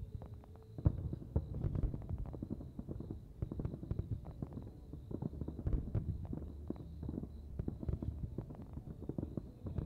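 Fireworks display: many shells and crackling stars bursting in quick succession, a dense run of pops and bangs, with one sharper bang about a second in.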